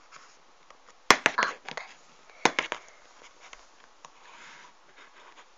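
A few sharp taps and clicks from a small plastic toy figure being handled close to the microphone, about a second in and again about two and a half seconds in.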